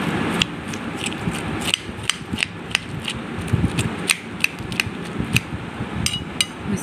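A steel spoon scraping and gouging pineapple flesh out of the shell on a ceramic plate, with irregular sharp clicks and taps as the spoon knocks against the fruit and the plate.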